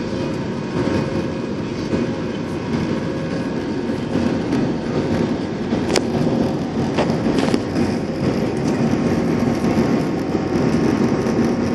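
Airbus A318 airliner cabin during the climb after takeoff: steady jet engine and airflow noise, with a few constant hum tones running through it and a couple of brief clicks about halfway through.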